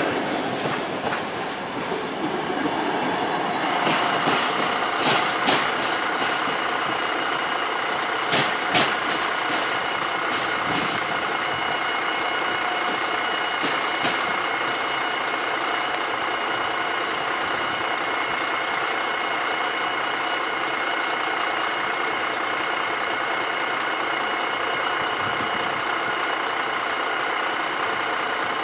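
Double-deck coaches clattering past over the rail joints, giving way to an electric train's steady hum of several even tones. There are a few sharp metallic clanks around four to six seconds in and again around eight to nine seconds.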